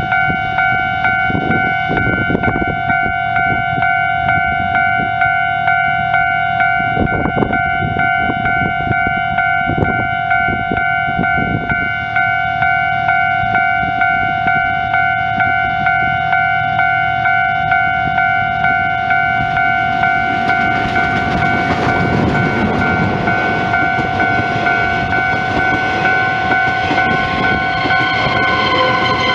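A level-crossing warning bell ringing steadily in regular strokes while a train approaches and passes: the rumble of the train grows from about two-thirds of the way in, and a horn sounds near the end as the orange electric locomotive running with the CK124 steam locomotive goes by.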